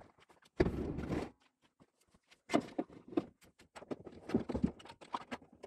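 Footsteps in boots on flat stones and grass while a plastic kayak is carried and set down. A short rough scrape comes about half a second in, then a run of irregular steps and light knocks.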